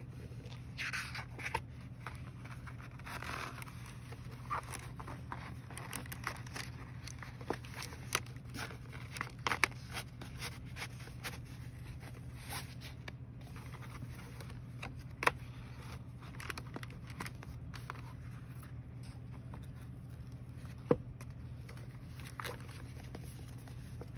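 A journal cover and its packaging being handled: scattered rustles, scrapes and light clicks, with two sharper taps about fifteen and twenty-one seconds in, over a steady low hum.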